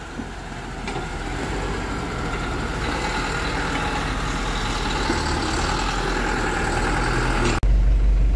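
Truck engine running steadily, building a little over the first few seconds. Near the end the sound changes abruptly to a deep, heavy rumble.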